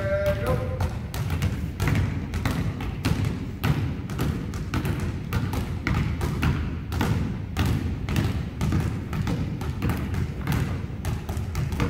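Basketballs being dribbled on a gym's hardwood floor, many bounces overlapping at an uneven rhythm and echoing in the hall.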